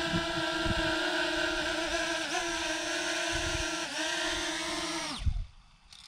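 Parrot Anafi quadcopter's propellers whining steadily while it hovers close by, dipping in pitch twice. About five seconds in, the motors wind down and stop: the drone is caught by hand and landed with the throttle stick held down.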